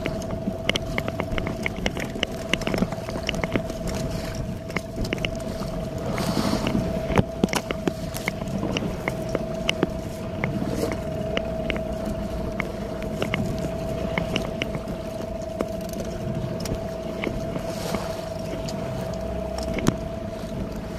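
Small fishing boat under way at sea, its motor running steadily with a constant, unchanging whine over a low rumble. Many short knocks and clicks are scattered through it.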